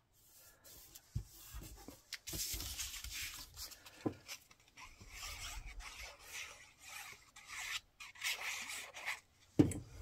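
Cardstock paper being handled, rubbed and slid against other cardstock and the cutting mat: a papery rustling that comes and goes, with a few light knocks and one sharper tap near the end.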